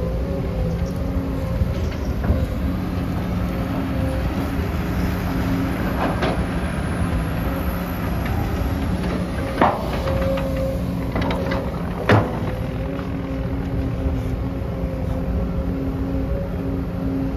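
Sumitomo SH250-6 excavator's diesel engine running steadily under load as it digs and loads, with a few sharp knocks from the bucket working rocky soil, the loudest about ten and twelve seconds in.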